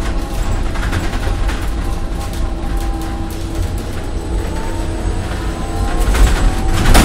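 Small city shuttle bus heard from inside the cabin as it drives slowly: the engine runs with a low rumble while the bodywork rattles and knocks over the road, louder near the end with a sharp knock.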